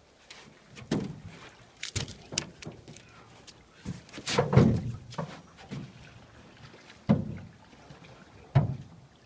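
A canoe being paddled through shallow flooded woods: irregular knocks and thumps of paddle and hull, about six in all, the loudest and longest about four and a half seconds in.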